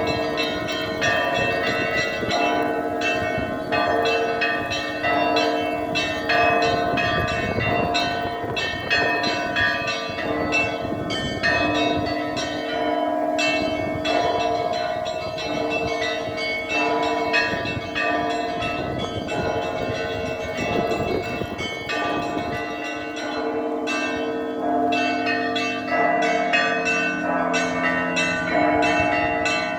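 Russian Orthodox church bell ringing (zvon): many bells of different pitches struck in a fast, continuous pattern, with the small bells chiming several times a second over the deeper ones.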